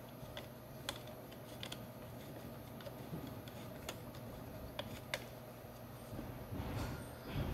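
Small, irregular metal clicks and ticks of an Allen key turning a screw into an inline skate's frame, as the brake's axle screw is threaded in. A louder thump near the end.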